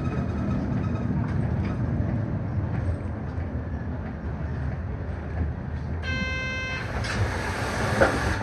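Steady low running noise of a city bus heard from inside the cabin as it drives in traffic. About six seconds in comes a short electronic beep, followed by a hiss and a sharp click near the end.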